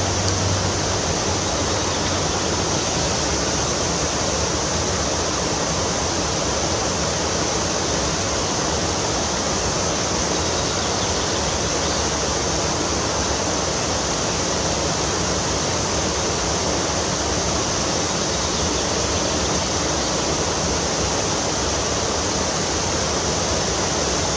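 Steady rushing of a fast-flowing stream, an even hiss of running water with no breaks.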